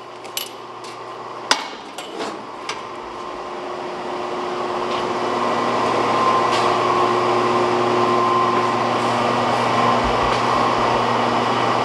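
A few sharp metal knocks, then a steady roar of blacksmith shop equipment that swells over a few seconds and holds, with a faint hum under it.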